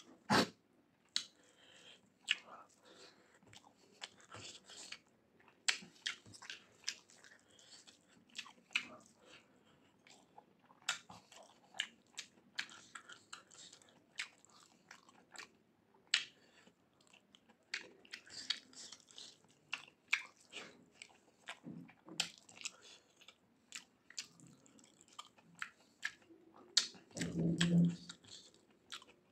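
Close-miked chewing of a mouthful of rice and mutton curry, with wet mouth clicks and smacks coming irregularly, and soft squishing of rice being worked by fingers. Near the end there is a short low voiced hum, the loudest sound here.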